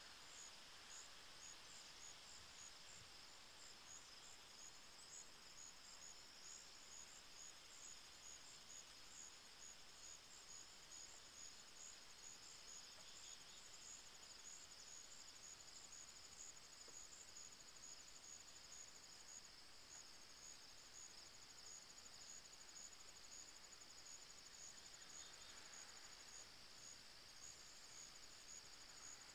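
Faint insect chorus: a steady high-pitched trilling, with a quick regular pulsing on top for much of the first two-thirds, over a soft hiss.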